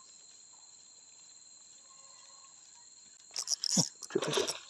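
Insects chirring steadily with a thin high drone. Near the end comes about a second of loud rustling with a couple of knocks.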